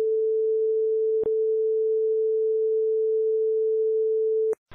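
Steady reference tone, a single pure pitch, laid under a broadcast tape slate's countdown. There is a brief click about a second in, and the tone cuts off abruptly near the end.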